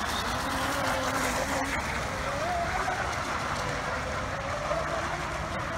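Radio-controlled F1 tunnel hull racing boats running at speed, their motors making a faint whine that rises and falls in pitch as they race around the course.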